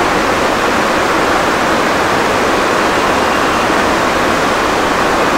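Steady, even rushing noise that holds the same level throughout.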